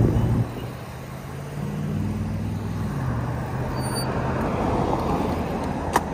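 Road traffic at an intersection: a box truck's engine hums close by and drops off in under half a second as it pulls away, then other vehicles' engines run and passing cars' tyre noise rises toward the end. One sharp click just before the end.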